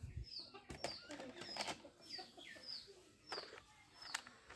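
A small bird chirping over and over, one short falling chirp about every half second, with sharp clicks and knocks of plastic toy guns being handled.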